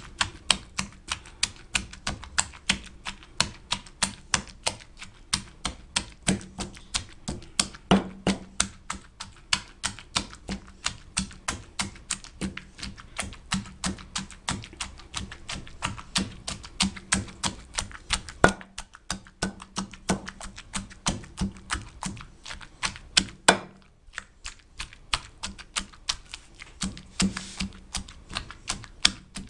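Wooden pestle pounding chopped tomatoes into a chutney paste in a heavy stone mortar: a steady run of quick knocks, about three to four a second, with two short breaks past the middle.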